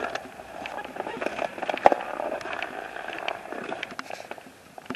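Irregular crunching and crackling of footsteps on snow, with a sharp click about two seconds in.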